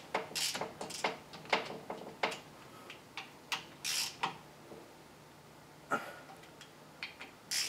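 Scattered light clicks and knocks with a couple of brief scrapes, from hands and a screwdriver working on a small mini bike engine during reassembly.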